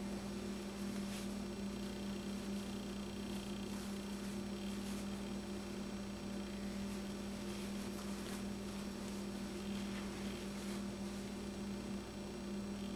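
Steady electrical hum, with faint crinkling of a paper towel being peeled off a microwaved pancake-and-sausage stick.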